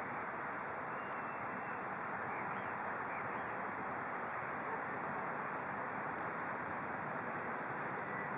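Steady outdoor hiss with the faint, even running of a slowly approaching miniature-railway locomotive, growing a little louder toward the end; a few faint bird chirps about halfway.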